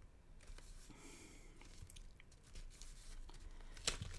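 Folded cardstock rustling and sliding as it is handled and lined up, with a sharp tap near the end.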